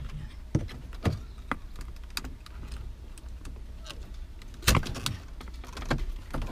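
Scattered clicks and knocks of hard plastic dashboard trim being handled and worked loose around a car's instrument cluster, one sharper knock about three-quarters of the way through, over a steady low hum.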